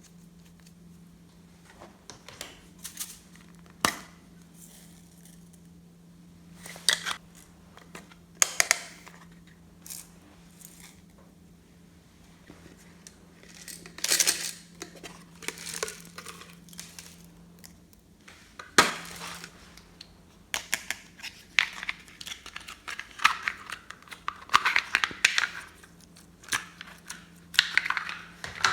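Sporadic sharp clicks and short crinkling, crackling bursts from hands working slime and handling plastic packaging, busiest in the second half.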